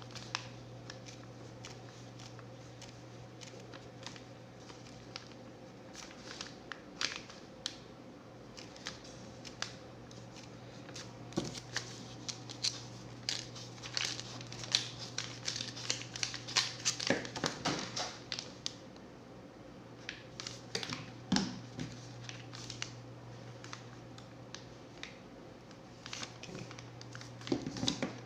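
Hands working a coaxial cable and metal F connector: irregular small clicks, scratches and crinkling, busiest in the middle, over a steady low hum.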